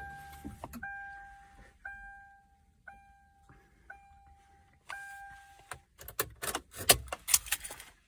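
A car's warning chime dinging six times, about once a second, each ding fading away. It is followed near the end by a quick run of clicks and knocks.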